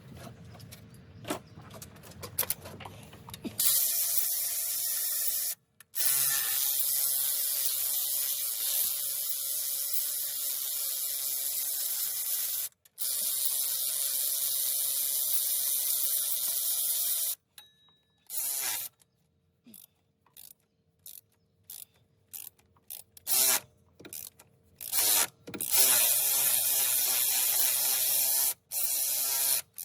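Power ratchet running in long runs of several seconds as it spins bolts out, then in short bursts with pauses after about 17 seconds.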